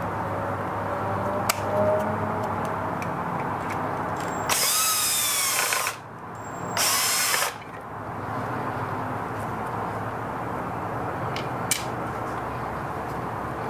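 Cordless drill/driver running in two short bursts, about four and a half seconds in and again about a second later, driving the machine screws that secure the belt casting into the underside of a coffee grinder. A few light clicks from handling the grinder come before and after.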